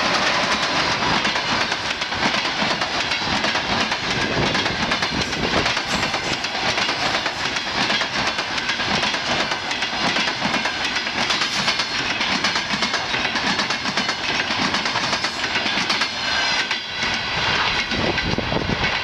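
Passenger train hauled by an EP10 electric locomotive passing through at speed, its wheels clattering steadily and rapidly over the rail joints.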